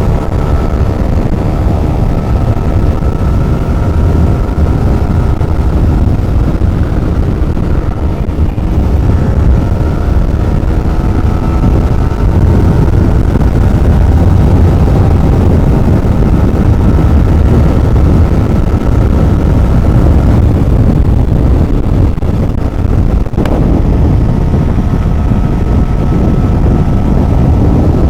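Motorcycle engine running steadily at riding speed, its note drifting slightly, under heavy wind rumble on the microphone.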